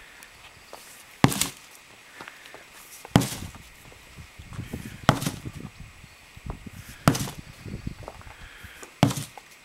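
12-pound sledgehammer striking with heavy blows, five in all, about one every two seconds.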